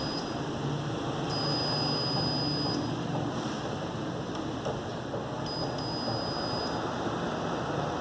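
Multimeter's continuity beeper giving a steady high beep three times: one cutting off about half a second in, one of about a second and a half, and one of about a second past the middle. The beep sounds as the probes bridge the water heater thermostat's terminals, signalling a closed circuit through the thermostat. A steady hiss and low hum run underneath.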